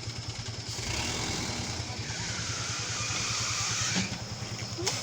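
A vehicle engine running with a steady low pulse, joined from about a second in by a loud rushing hiss, with two sharp knocks near the end.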